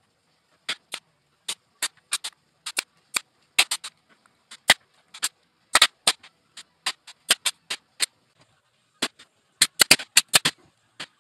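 Bostitch pneumatic brad nailer firing over and over, driving 1 1/4 inch brad nails through plywood: many sharp shots in an irregular run, some in quick pairs and clusters.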